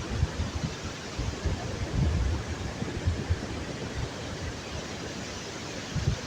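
Sea waves washing steadily, with wind buffeting the microphone in low gusts, heaviest at the start and about two seconds in.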